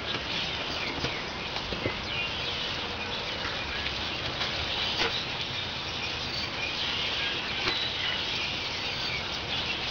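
Steady light rain falling, with a few sharper drops tapping now and then.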